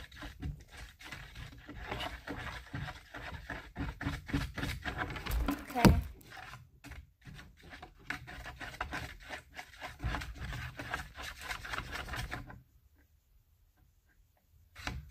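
Unactivated slime mixture being stirred in a plastic pumpkin bucket: quick irregular scraping and squishing strokes, which stop about twelve seconds in.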